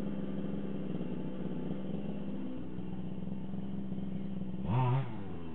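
Redcat Rampage XT's small two-stroke gas engine idling steadily during warm-up. About five seconds in, a brief louder sound with a rising-then-falling pitch cuts across it.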